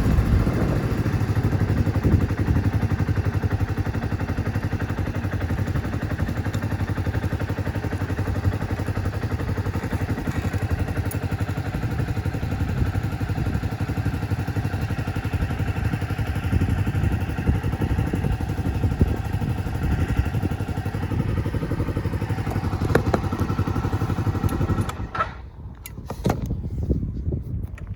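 Suzuki Skywave 250 scooter's single-cylinder four-stroke engine running steadily, then stopping about 25 seconds in, followed by a few light clicks and knocks.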